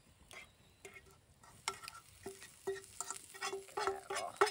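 A metal utensil clinking and scraping against frying pans over a campfire: about nine short taps, each with the same brief ringing note, coming quicker toward the end. Food sizzles faintly in the pan underneath.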